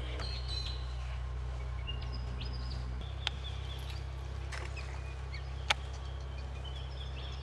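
Birds chirping, with short high calls scattered throughout, over a steady low hum. Two sharp clicks come about three and six seconds in.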